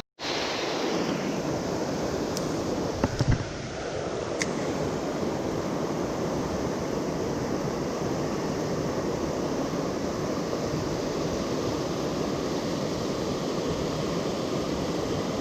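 Fast-flowing river water rushing steadily, with a few brief knocks about three to four seconds in.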